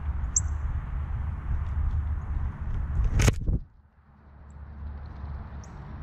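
Wind buffeting an outdoor microphone with a steady low rumble. It peaks in a loud gust a little past halfway, then cuts away suddenly and slowly builds back. A small bird gives two short, high chirps, one near the start and one near the end.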